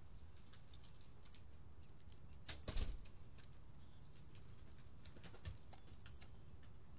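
Light, irregular tapping and clicking at a bird feeder as a visitor pecks and moves about on it, with a louder knock and rattle about three seconds in.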